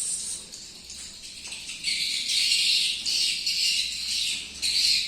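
Swiftlet calls: a dense, rapid high-pitched twittering that swells louder about two seconds in and again near the end.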